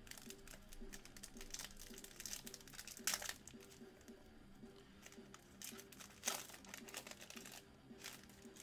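Foil wrapper of a Panini Select basketball card pack crinkling and tearing as it is ripped open by hand: faint, scattered rustles, the loudest about three seconds in and again a little past six seconds.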